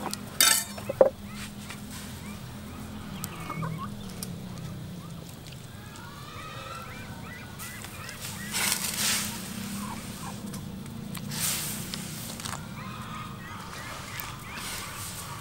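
Chicken pieces splashing into a wok of boiling water, once at about eight and a half seconds and again at about eleven and a half, over a steady low boil. Birds call on and off in the background, and two sharp knocks come about half a second and a second in.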